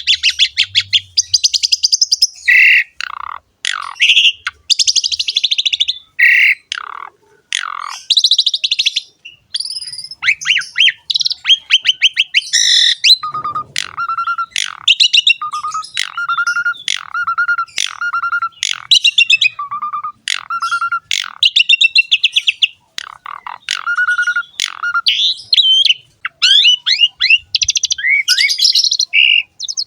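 Jalak suren (Asian pied starling) singing a long, varied song of harsh rasping phrases mixed with short whistled notes. Through the middle of the song a lower note comes in about once a second.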